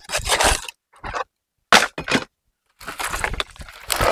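Dry coconut palm fronds and bunch stalks being cut and handled, making rough scraping and crackling noise in several separate bursts.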